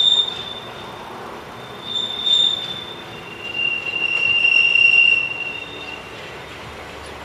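Hokuriku Railroad Ishikawa Line electric train's wheels squealing on a sharp curve, over the running of the train. Three high squeals: one at the start, one about two seconds in, and a longer, lower-pitched one that is the loudest, from about three and a half to six seconds in.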